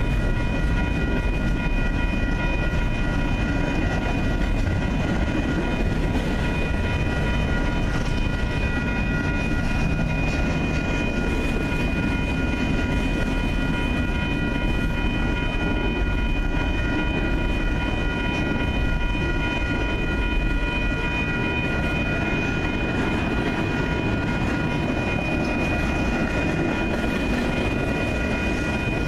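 Double-stack intermodal container freight train rolling steadily through a grade crossing, a continuous rumble and clatter of wheels on rail. Steady high ringing tones from the crossing's warning bell sound over it throughout.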